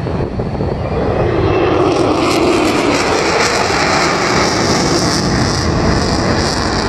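F-35 fighter jet flying past, its engine noise swelling about a second in and staying loud.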